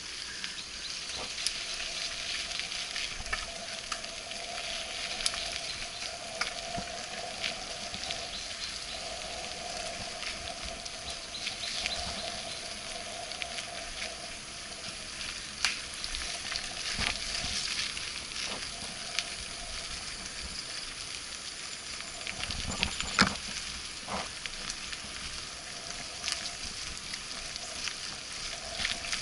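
Mountain-bike tyres hissing steadily on a wet paved path, with scattered clicks and rattles from the bike over bumps and a sharper knock about two-thirds of the way through.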